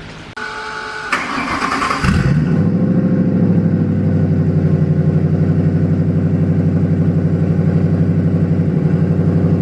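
Turbocharged Ford Crown Victoria's V8 being started: the starter cranks for about two seconds, the engine catches and settles into a steady, pulsing fast idle, which the crew call idling high.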